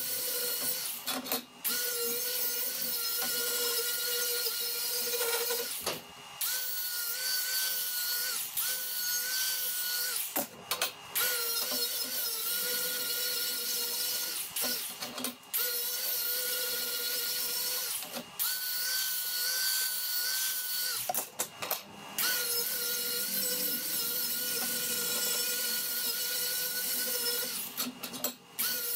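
Small right-angle grinder with a sanding disc running at high speed against the plasma-cut edges of 3/16" mild steel bar, dressing and deburring them. It is a steady high-pitched whine that stops briefly every few seconds, its pitch dipping a little as the disc bears on the steel.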